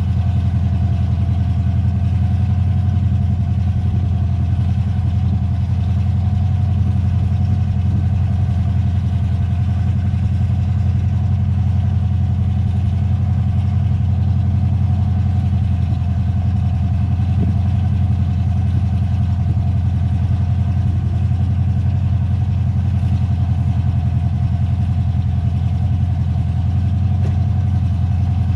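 An engine idling steadily, a low hum that holds the same pitch throughout.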